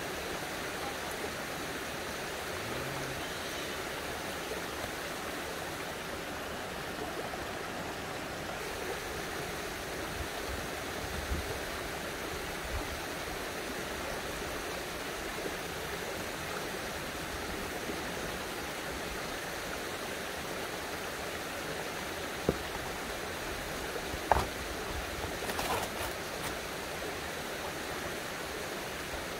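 Steady rush of running spring water, with a few brief knocks near the end.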